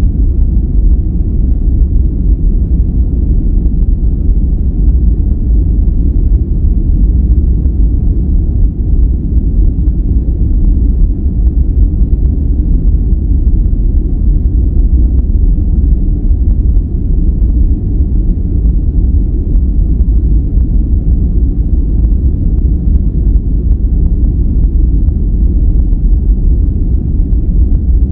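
A steady, unbroken noise track of the kind sold as "white noise", here deep and rumbling: its weight sits in the bass, with little hiss on top and no changes or events.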